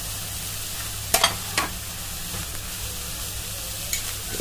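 Spatula stirring shredded chicken and sautéed vegetables in a frying pan, with a steady sizzle and a few sharp scrapes and knocks of the spatula against the pan, the loudest about a second in.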